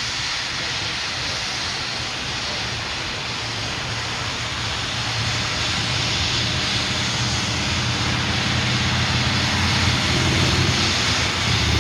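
Diesel locomotives trailing the Big Boy steam locomotive rumbling past close by. It is a steady roar with a low engine drone that grows louder toward the end.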